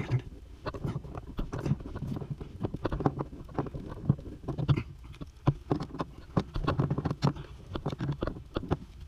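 Irregular light clicks and knocks of hand tools and brass plumbing fittings being handled, with some dull low thuds mixed in.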